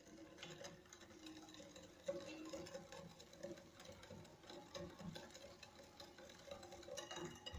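Wire whisk beating an egg, sugar and oil cake batter in a glass bowl: a faint, rapid run of clinks and taps of the metal wires against the glass.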